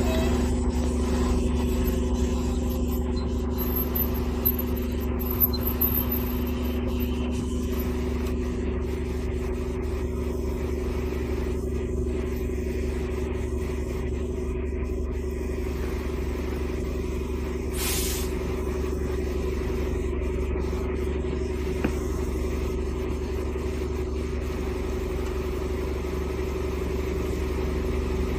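Bulk cement tanker truck running steadily while its air compressor blows cement powder out through the discharge hose: an unchanging mechanical drone with two steady tones over a low rumble. A short high hiss comes about two-thirds of the way through.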